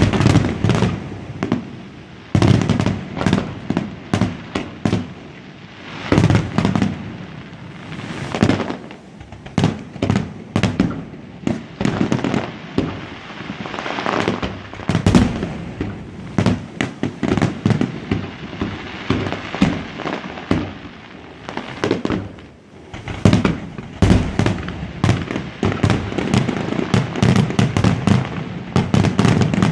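Fireworks going off in rapid, overlapping bangs and crackles, several a second, with deeper booms among sharper cracks and a brief lull about three quarters of the way through.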